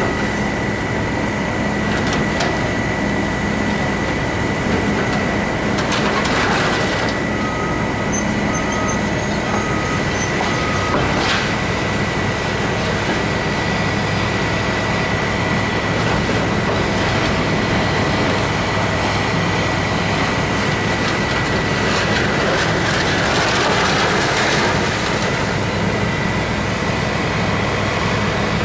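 Demolition excavator with a grapple attachment working: a steady diesel engine and hydraulic drone under a thin high whine, broken by the crash and rattle of debris being pulled down several times. A backup alarm beeps four times about eight seconds in.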